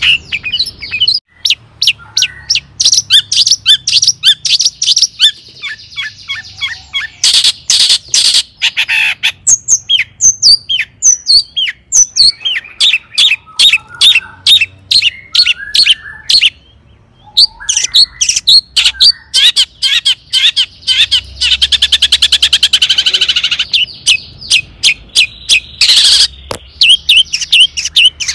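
Long-tailed shrike (cendet) singing a loud, fast, varied song of short sharp repeated notes and rapid trills, with a brief pause a little past halfway.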